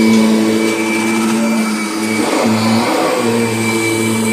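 Kirby Sentria upright vacuum running with a steady motor hum and a thin high tone, its brush roll driven by a freshly replaced belt. About two seconds in, the hum wavers for a second under a rough scuffing noise.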